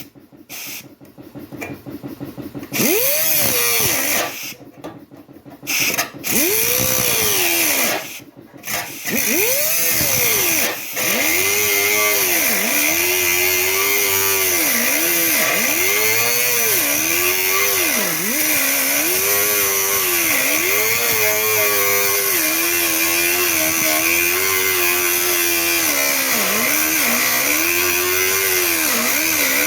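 Power cutoff tool (grinder with a cutoff wheel) cutting sheet steel for a tailgate patch panel. It starts and stops a few times in the first several seconds, then runs steadily, its high whine dipping in pitch each time the wheel bites into the metal.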